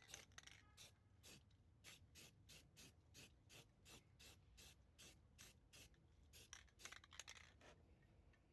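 Small brush applying touch-up paint to bare aluminium: a faint, quick series of brushing strokes, about three a second, which come thicker near the end and then stop.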